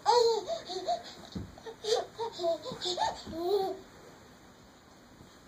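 A baby laughing in a string of short high-pitched bursts, stopping about four seconds in.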